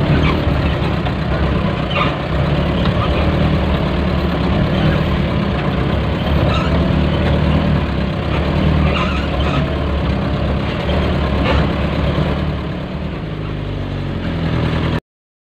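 Diesel engine of a 2004 light truck running steadily, heard from inside the cab, with occasional light knocks and rattles from the rough dirt track. Near the end the engine note drops as the truck slows, and then the sound cuts off suddenly.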